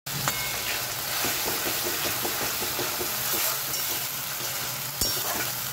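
Spice paste of onion, tomato, ginger and green chilli sizzling as it fries in hot oil in a kadai, with a spatula stirring it in quick light ticks. A single knock about five seconds in.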